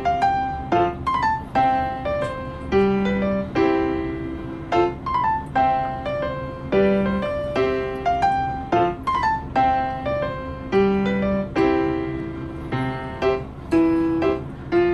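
Background piano music: a light melody of single struck notes over a low note that returns about every four seconds.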